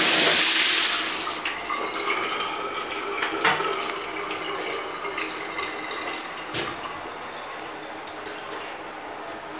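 Water in a tiled shower: a steady rush stops about a second in. Scattered drips and small clicks follow, some with a brief ringing ping.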